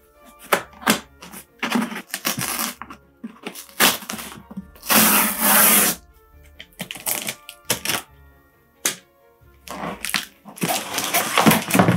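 Packing tape being cut and torn off a cardboard box, with cardboard and paper crinkling and scraping. A long, loud rip of tape comes about five seconds in. Background music plays underneath.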